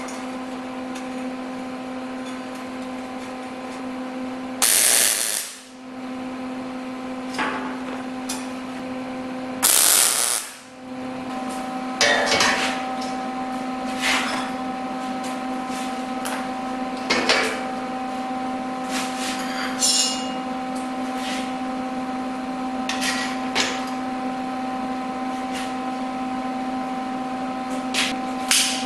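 Two short MIG tack welds, each a half-second burst of crackle, about five and ten seconds in. After them come scattered metal clanks as angle grinders are set into the steel rack, over a steady hum.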